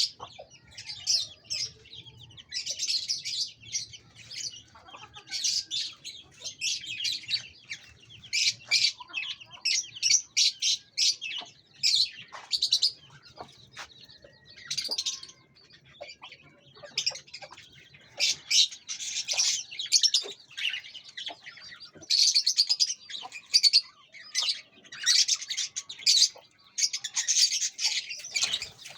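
Many small birds chirping continuously in quick, overlapping bursts of high-pitched calls.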